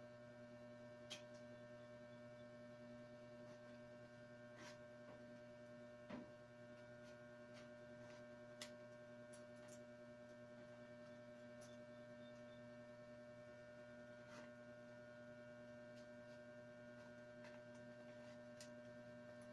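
Faint steady electrical hum, with a few soft clicks and taps scattered through it as wicker strands are handled while a round tray basket is woven by hand.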